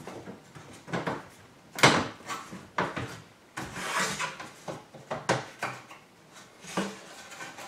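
Injection-molded glass-filled nylon (PA66 GF) BB-8 skeleton pieces clacking and rubbing against each other as a section is slid onto its locating biscuits and the ball is turned by hand: several sharp plastic knocks, with a longer scraping rub in the middle.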